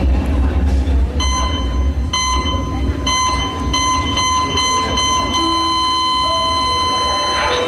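Hospital heart-monitor sound effect played over a deep low rumble. Beeps about once a second quicken, then merge about two-thirds of the way in into one long unbroken flatline tone, the sign of the patient's heart stopping.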